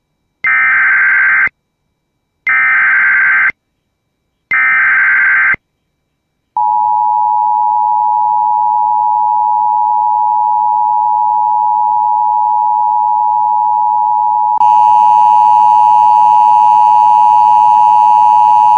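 Emergency Alert System flash flood warning: three one-second bursts of the buzzy data header, each followed by a second of silence, then a steady alert tone near 1 kHz. About fourteen seconds in, the tone gets louder and harsher.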